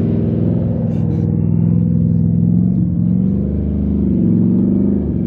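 SN95 Mustang GT's V8 held at high revs, its pitch wavering a little, as the car sits stuck in mud with the rear wheels spinning and digging in.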